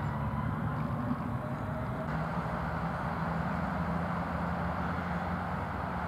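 Steady low rumble of distant road traffic, with a faint engine whine drifting slowly in pitch.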